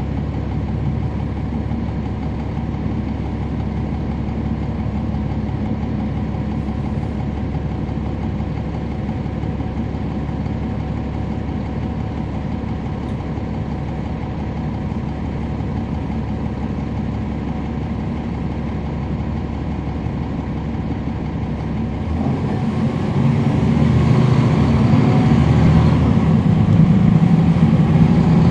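Cummins ISL9 inline-six diesel of a NABI 40-SFW transit bus idling steadily, heard from on board. About 22 seconds in, the engine revs up and grows louder as it takes load.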